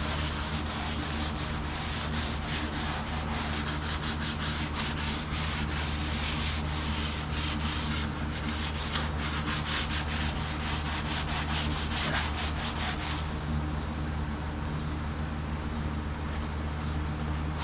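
Hand sanding painted automotive sheet metal by hand, in quick, continuous back-and-forth strokes. The sanding is done to show up low spots and flaws in the bodywork.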